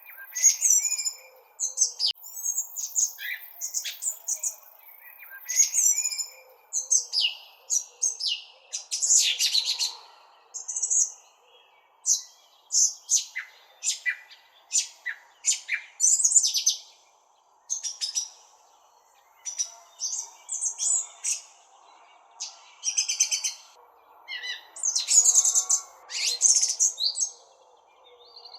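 Small songbirds chirping: quick runs of short, high notes, several calls overlapping and following each other with brief pauses, over faint steady background noise.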